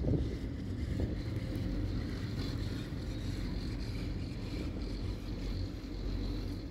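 Wind buffeting the microphone and a steady low rumble while riding a fixed-grip four-seat chairlift, with a stronger gust right at the start and a faint high whine.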